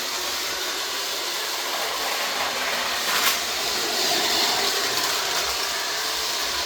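Bachmann G-scale model train running with a steady hiss, with one sharp click about three seconds in.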